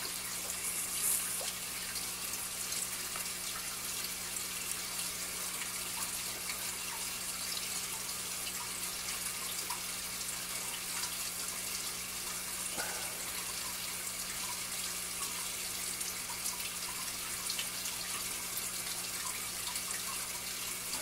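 Steady hiss of running water, with a faint low hum underneath and a few light ticks of plastic being handled.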